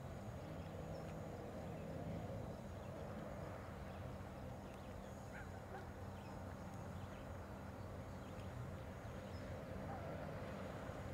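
Faint outdoor ambience: a low steady hum with a few soft ticks and chirps above it.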